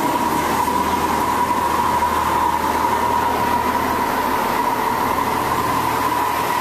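Automatic car wash machinery applying foam to the van, heard from inside the cabin: a steady rushing spray over a machine hum, with a constant high whine running through it.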